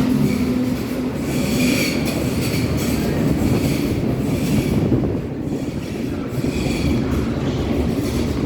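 Berlin U-Bahn H01 metro train running, a steady rail rumble heard from inside the carriage, with high wheel squeal twice: about two seconds in and again around seven seconds.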